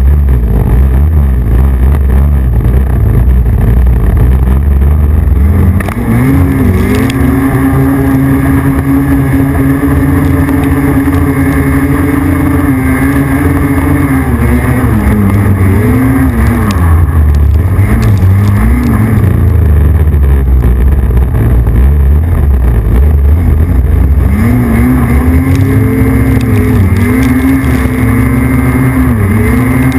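Snowmobile engine running loud and hard while climbing a snowy slope, heard close up from the back of the sled. Under the low rumble a steady engine note sets in about six seconds in, dips and recovers a few times midway, then holds steady again toward the end.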